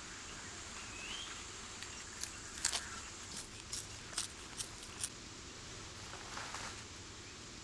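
A Zanzibar red colobus monkey crunching a lump of charcoal: a run of about eight sharp, dry crunches between two and five seconds in, over faint forest background, with a short rising chirp about a second in.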